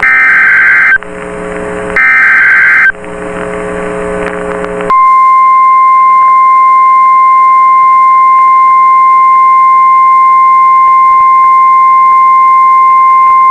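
NOAA Weather Radio alert: the last two of the three SAME data bursts, each a second of harsh warbling digital tones, then a short stretch of radio hiss, then the 1050 Hz warning alarm, a single steady piercing tone held for about nine seconds and cut off sharply. It signals that a warning is about to be read, here a tornado warning.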